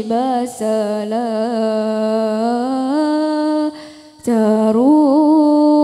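A single voice singing a slow, drawn-out Arabic devotional verse, holding long notes with a slow waver. The singing breaks off briefly about four seconds in and then resumes.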